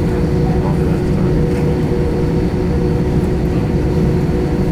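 Airbus A320 cabin noise from inside the plane: the jet engines run steadily under a dense low rumble, with a steady hum running through it.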